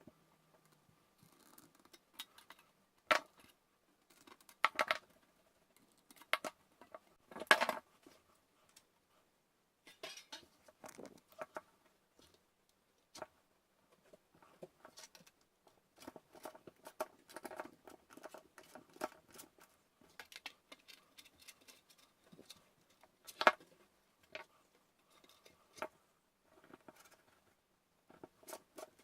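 Metal snips cutting thin sheet metal, with irregular crisp snips and clicks and a few louder metallic clacks as the corners are cut out for folding.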